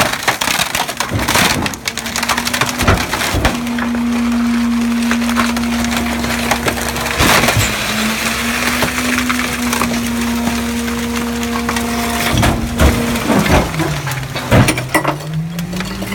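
Garbage truck's compactor blade crushing wooden boards in the rear hopper: the wood cracks and splinters in irregular sharp snaps. Under it runs the truck's steady mechanical hum, whose pitch dips and climbs back up near the end.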